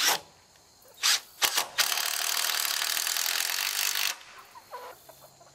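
Cordless drill driving a screw into a wooden board: a few short bursts and clicks as the bit catches, then a steady run of about two seconds that stops abruptly.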